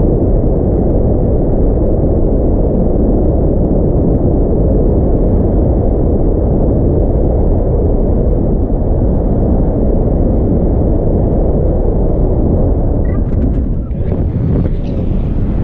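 Airflow buffeting an action camera's microphone in flight under a tandem paraglider, a loud, steady low rumble of wind noise. About a second and a half before the end the rumble dips briefly and a few faint higher clicks come through.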